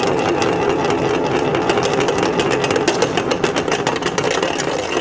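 An object spun on a large round metal tray, rattling and rumbling steadily with rapid irregular clicks for about five seconds, then stopping.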